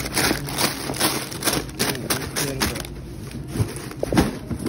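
Plastic snack-chip bags crinkling and rustling as hands sort through them in a cardboard case, in a run of short irregular crackles, with the case's cardboard flaps being handled.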